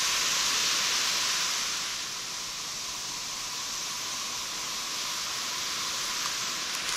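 Sea surf washing onto a beach: a steady rushing hiss of rough water, a little louder for the first two seconds and then easing off.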